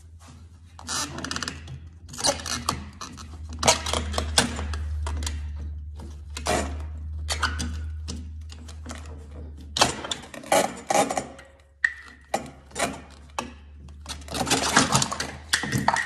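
Metal parts of a snowmobile's rear suspension clanking and knocking as the bogie wheels, with their spacer, bushings and through-shaft, are pried out, in many short irregular clatters. A low hum runs underneath, strongest in the first half.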